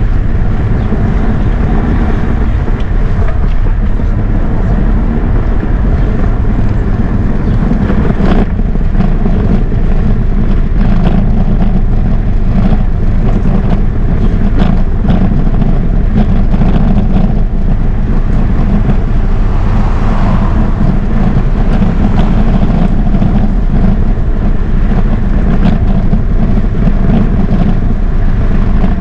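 Steady wind rush on the microphone together with tyre rumble over brick paving: the noise of riding along a bike path, with a few brief knocks from bumps in the paving.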